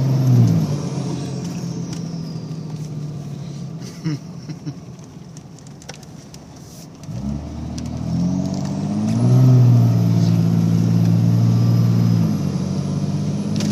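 Dodge pickup's Cummins diesel engine revving down and easing off for a few seconds, then revving up hard about seven seconds in and holding high revs before dropping back near the end, with a high whine rising and falling with the revs.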